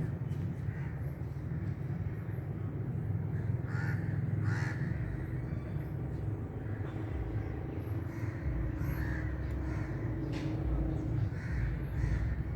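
Crows cawing, several separate harsh calls spread out, over a steady low rumble.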